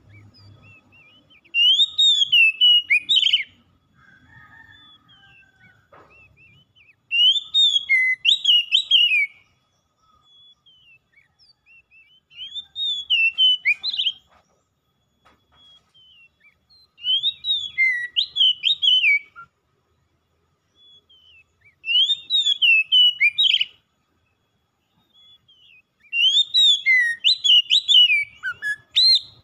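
Male Oriental magpie-robin singing: six short phrases of clear, quickly rising and falling whistled notes, each about two seconds long, one about every five seconds.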